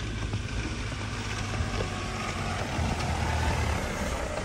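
Engine of a small 4x4 off-roader running at low speed as it drives slowly along a snowy gravel track, getting a little louder as it comes close, about three seconds in.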